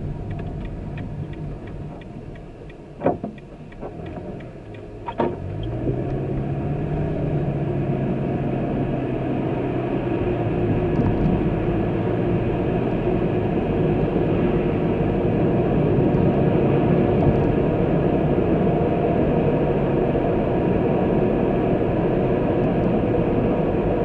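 A vehicle on the road. A quieter start holds a couple of sharp clicks about three and five seconds in. Then the engine note rises as it pulls away, and engine and road noise build to a steady drone.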